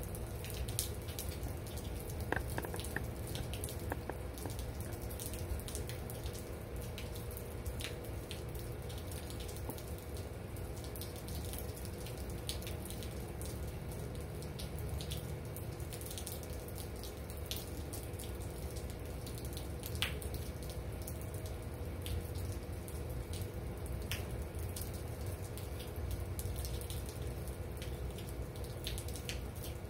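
Steady rain falling, with scattered drops tapping and dripping close by, the sharpest about two-thirds of the way through, over a steady low hum.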